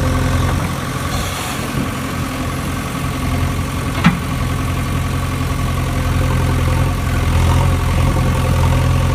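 A steady engine-like idling drone, a low even hum that holds level throughout, with one sharp click about four seconds in.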